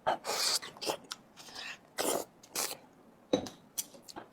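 Someone eating noisily: a string of short, irregular chewing and mouth-smacking sounds.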